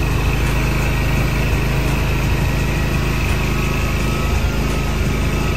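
Hustler Surfer Pro 34 stand-on mower's engine running steadily.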